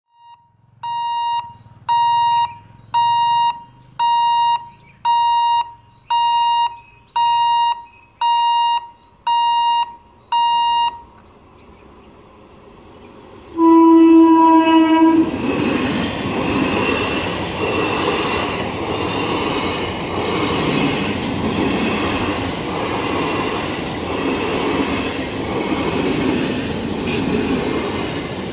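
An electronic beeper sounds ten times, about once a second. Then a suburban EMU local train gives one horn blast of about a second and a half, the loudest sound, and runs past with a steady rumble and the rhythmic clatter of its wheels over the rail joints.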